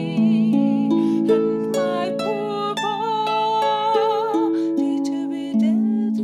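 Harp music: plucked notes ringing and overlapping, with a held melody line that wavers in pitch above them.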